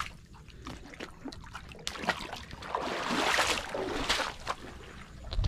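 Shallow seawater sloshing and splashing among rocks, growing louder for a couple of seconds around the middle, with a few small knocks.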